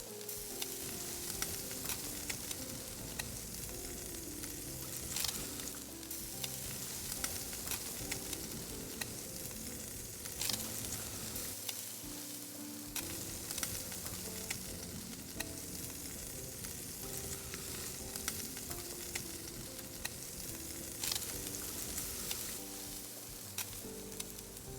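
Lamb hamburger patties sizzling steadily as they cook over charcoal, with frequent small pops and crackles. Soft background music plays underneath.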